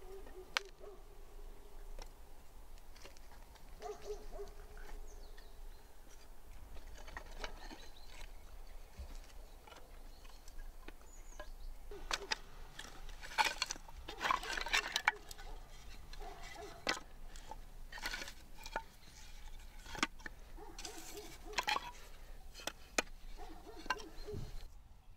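Scattered clicks and knocks, loudest and busiest in the middle. Behind them a bird gives low calls, each held on one note, repeating a few times.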